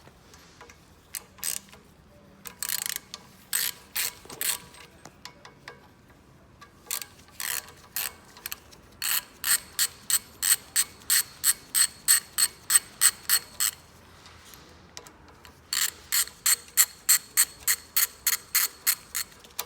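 A hand ratchet clicking in long even runs of about two or three clicks a second, after a few scattered clicks, with a short pause between the runs.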